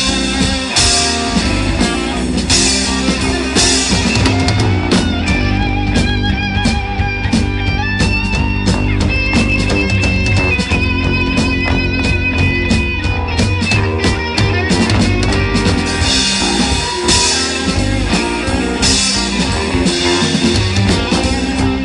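Live rock band playing an instrumental passage: an electric guitar plays lead lines with long, wavering held notes over bass guitar and a drum kit, with crash cymbal hits.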